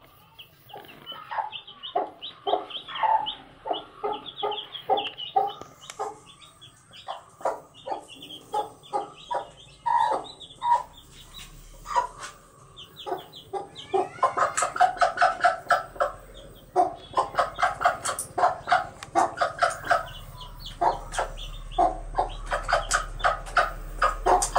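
A flock of chickens clucking as they feed: many short clucks in quick runs, growing busier and louder about halfway through.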